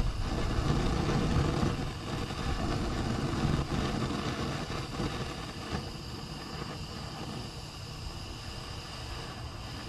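Handheld propane torch burning with a steady hiss as it heats a seized locknut, mixed with wind rumbling on the microphone that is louder in the first couple of seconds.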